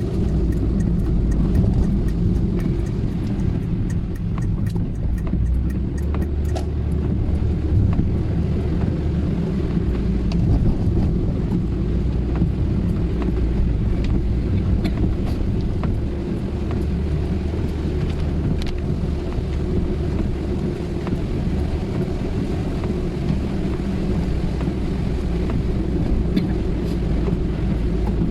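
Steady low road and engine rumble heard from inside a moving car's cabin, with a few faint ticks over it.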